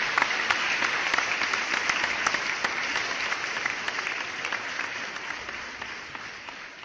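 Applause: many hands clapping in a dense, steady patter that dies away over the last few seconds.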